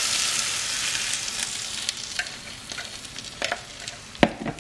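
Beaten egg poured over frying potato cubes in a hot non-stick pan, a loud sizzling hiss that dies down over the first couple of seconds. A few light clicks follow, with a sharp knock about four seconds in.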